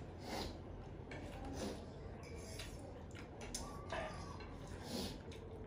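Faint scattered clicks and taps of cutlery and dishes at a meal, over a low room hum.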